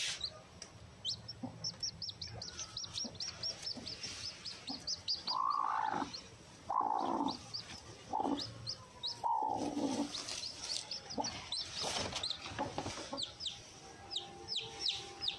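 Newly hatched chicks peeping rapidly and continuously in short, high, falling chirps. A few louder, lower calls from the brooding Aseel hen come in the middle, as she is handled over her chicks.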